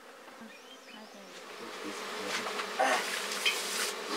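Swarm of honeybees buzzing as they cluster on a wall after being smoked out of their hive: a steady hum that grows louder. A couple of brief rustling noises come near the end.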